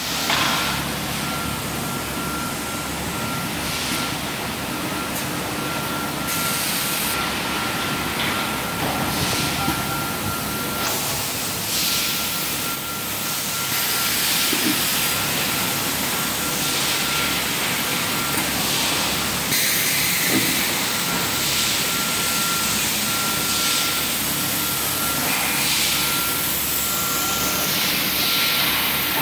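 Factory-floor noise from pneumatic rubber-bladder machines: a steady machinery hum with repeated bursts of compressed-air hiss and a thin, steady high tone that drops out for a while midway and then returns.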